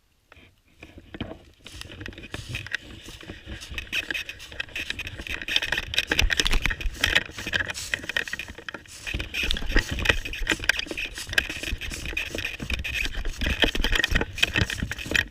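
Irregular rustling, scraping and rattling close to the microphone, a dense run of small clicks that grows louder about two seconds in and keeps on at a fairly even level.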